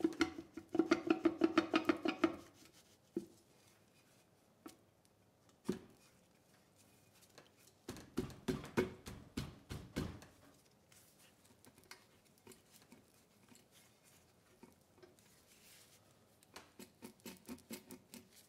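Three runs of rapid metallic clicking, with a few single knocks between them, from hands working the crankshaft and crankcase cover of a torn-down Subaru EX30 engine. The first run is the loudest and rings.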